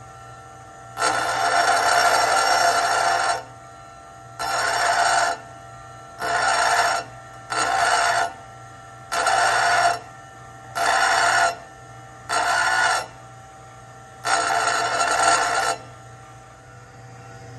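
DeWalt DW756 bench grinder's stone wheel grinding the head of a steel bolt in eight short passes of one to two and a half seconds each, a loud ringing grind at each contact. Between passes the grinder motor keeps running with a steady low hum.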